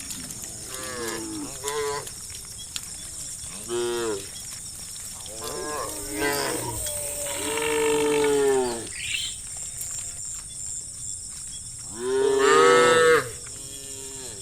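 Several cattle mooing one after another: a few short calls early, a long moo in the middle, and the loudest moo, lasting about a second, near the end.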